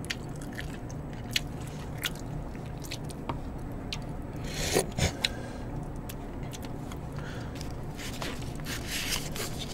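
Close-up eating sounds: chewing and biting, with scattered light clicks and scrapes of chopsticks on pork bones and a plate as meat is picked off, and a louder cluster of noise about five seconds in.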